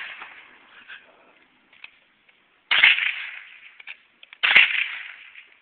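Two gunshots about two seconds apart, each a sharp crack that trails off into echo over about a second. The echoing tail of an earlier shot fades out at the start.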